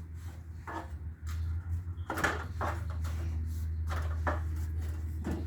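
A handful of knocks and bumps from a door being handled, the loudest about two seconds in, over a steady low hum.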